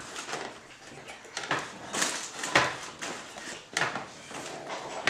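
Plastic baby swing knocking and scraping against a wooden floor as a toddler pushes and crawls under it: a few irregular clatters and rustles, the loudest about two and a half seconds in.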